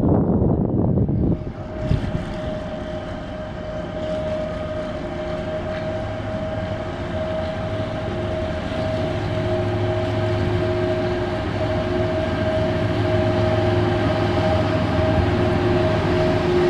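Inland cargo ship's diesel engine running with a steady, even drone that grows gradually louder as the ship comes closer. A loud rumbling noise before it breaks off abruptly in the first couple of seconds.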